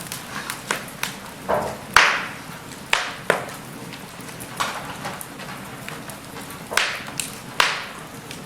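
Wood fire of burning logs in a fireplace crackling, with sharp pops at irregular intervals over a steady low hiss; the loudest pop comes about two seconds in.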